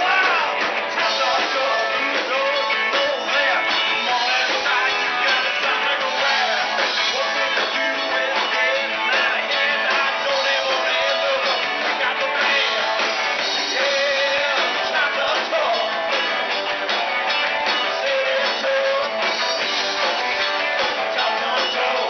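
Live rock and roll band playing: electric guitars, bass and a drum kit, with a singer on top.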